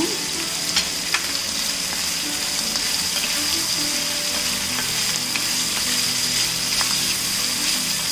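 Sliced onions and whole almonds sizzling steadily as they fry in ghee and oil on medium-low heat in a stainless steel pan, stirred with a wooden spatula. Two sharp clicks come about a second in.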